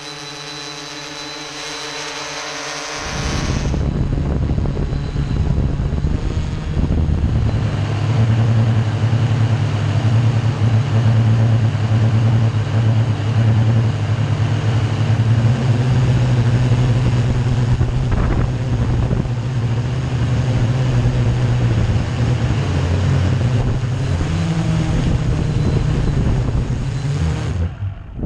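Blade Chroma quadcopter's electric motors and propellers running in flight: at first a steady whine of several tones, then from about three seconds in a louder, rougher running sound with a strong low hum. It cuts off abruptly just before the end.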